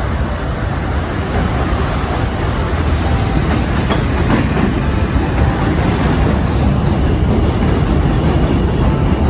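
New York City subway train running across a steel bridge close by: a loud, steady rumble that builds a little over the first few seconds and holds.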